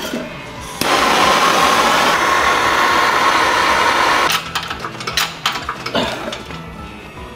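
A pneumatic tool working at a hydraulic shop press on a ball joint, run in one burst of about three and a half seconds with a steady buzzing hiss that cuts off suddenly, followed by several sharp metal clanks.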